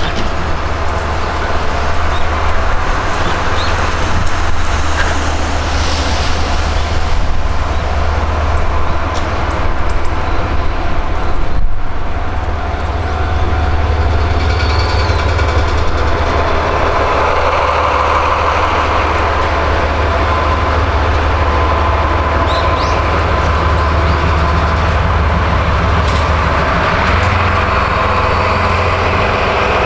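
Diesel freight locomotive of the Seino Railway running toward and past the crossing, a steady low engine drone that grows louder and brighter from about halfway through as it comes close.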